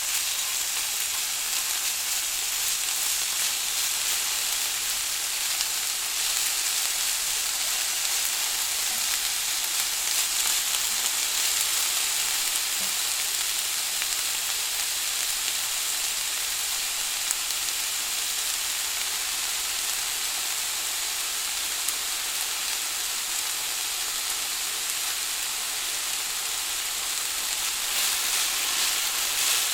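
Vegetables stir-frying: a steady, dense sizzle with fine crackling, growing slightly louder near the end.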